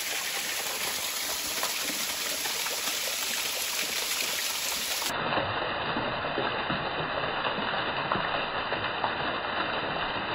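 Steady rushing and splashing of a small waterfall and stream running over rocks. About five seconds in, the rushing abruptly turns duller.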